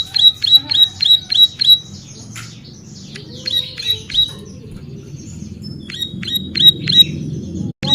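Ciblek sawah, a prinia, singing a fast run of sharp, high notes, about four a second. In the middle the run gives way to rougher, scratchier calls, and the quick notes start again near the end.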